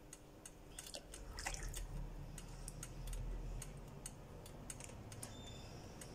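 Metal spoon stirring chicken and vegetables in water in a non-stick pot: liquid sloshing, with a scatter of light clicks where the spoon knocks against the pot.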